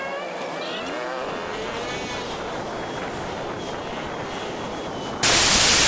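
Engine and road noise on a ride along a busy town street, with engine pitches rising and falling. About five seconds in, a sudden loud hiss cuts in and lasts about a second.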